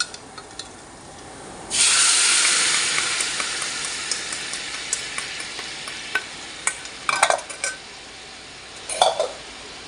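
Sauce poured into hot garlic butter in a frying pan, sizzling loudly. The sizzle starts suddenly about two seconds in and slowly dies down, with a few light clinks near the end.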